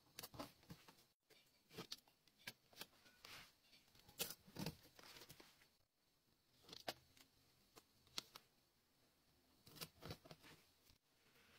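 Quiet paper handling: scattered soft rustles, taps and clicks as cut-out paper pieces and pictures are laid and pressed down on a spiral-bound journal page, the loudest handling about four to five seconds in.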